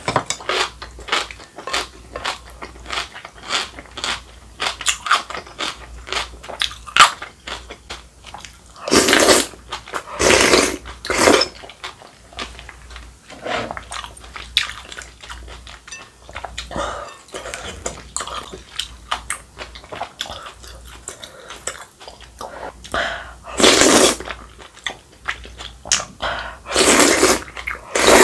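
Close-miked eating sounds of rice cake and dumpling soup: steady wet chewing with many short mouth clicks, and a few longer slurps from a spoon, about a third of the way in and twice near the end.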